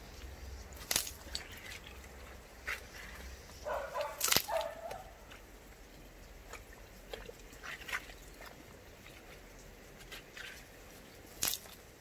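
Scattered sharp clicks and knocks of hands scraping mud and stones out of a small mountain spring basin, with a brief whine about four seconds in.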